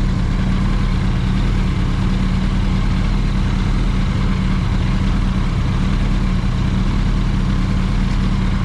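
Motorcycle engine running at a steady speed under way, with wind and road noise rushing over the helmet-mounted camera. The engine's pitch holds even, with no revving or gear changes.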